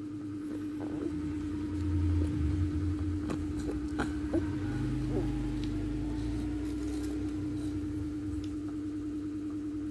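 Low engine rumble of a passing motor vehicle, swelling briefly and then again for several seconds in the middle, over a steady hum.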